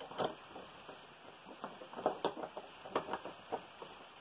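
Irregular light taps of raindrops dripping, a few drops a second, over a faint steady hiss.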